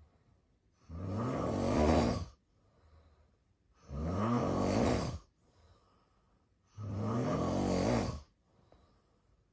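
A man snoring in his sleep: three long snores about three seconds apart, each lasting about a second and a half, with faint breathing between.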